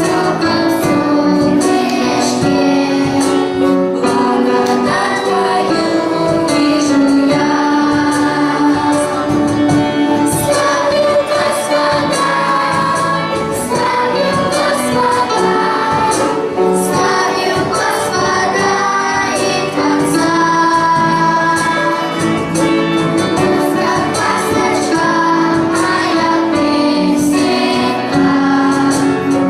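Children singing a hymn together with instrumental accompaniment.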